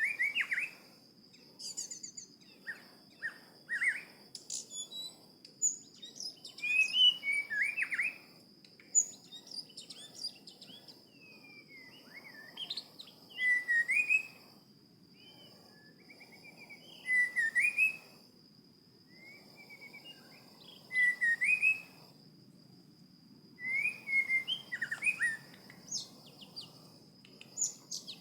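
A songbird calling in short whistled phrases of rising and falling notes, repeated every few seconds, over a steady high-pitched insect drone.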